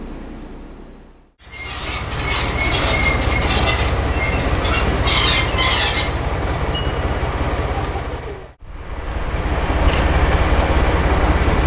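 Diesel locomotive running on the line, with a strong low engine rumble and high-pitched squeal from the wheels on the rails. The sound breaks off abruptly twice, about a second and a half in and about eight and a half seconds in, as one clip cuts to the next.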